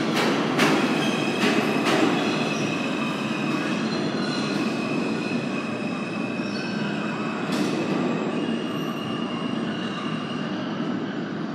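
R160A-2 subway train pulling out and running away down the tunnel: a rumble of wheels on rail that slowly fades, with a thin, steady squeal of the wheels on the rails and a few sharp clacks over rail joints in the first couple of seconds.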